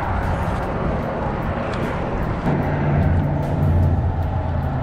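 Road traffic: a steady wash of vehicle noise, with a motor vehicle's low engine hum setting in about halfway through and holding steady.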